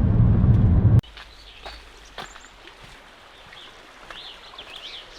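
Low road rumble inside a moving car for about the first second, cut off abruptly. After it comes quiet outdoor ambience with birds chirping, a quick run of high chirps near the end.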